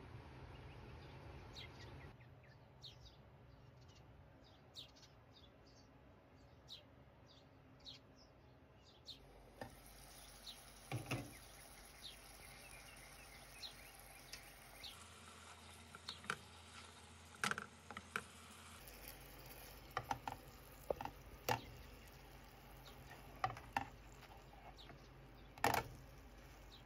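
Meat burger patties frying in oil in a nonstick pan, the fat crackling and spitting with sharp, irregular pops. The pops are sparse at first and come thicker and louder in the second half.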